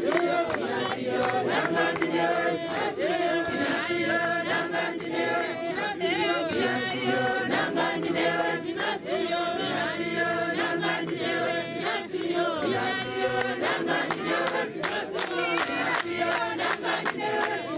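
Congregation singing a hymn together a cappella in many voices, with a sharp, regular beat keeping time.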